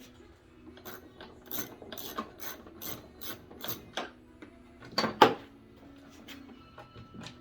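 Ratchet wrench clicking in an even run of strokes, about three a second, while tightening the heater box bolts, then two louder metal knocks about five seconds in.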